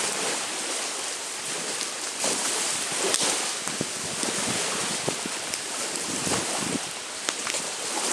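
Driftwood campfire crackling with scattered sharp pops, over steady wind and small waves washing on a lakeshore.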